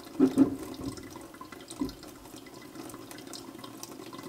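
Hot water from an electric kettle pouring in a steady stream over a glass bottle held in a sink, heating the scored line before the bottle is plunged into ice water to snap it off. A few sharp knocks sound near the start.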